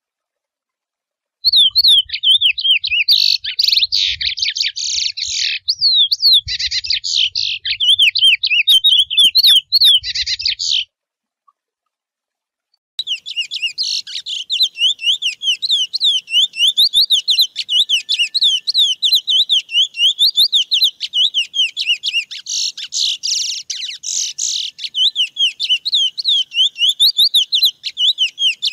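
Chestnut-bellied seed finch (curió) singing its wild 'mateiro' song, a fast, run-on warble of short notes rising and falling in pitch. It starts about a second and a half in, breaks off for about two seconds near the middle, then runs on without a pause.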